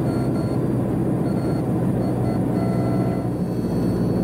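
Steady drone of a Cessna P210's turbocharged six-cylinder piston engine and propeller, heard inside the cockpit in flight. Faint thin high whistles come and go above it.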